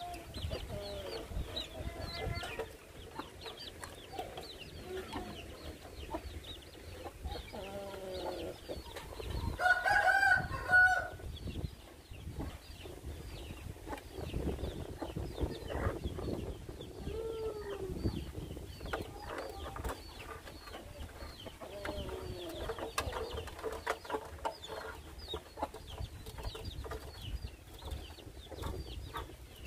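A hen clucking and her chicks peeping steadily in short high chirps. About ten seconds in, a rooster crows once, the loudest sound, lasting a second or so.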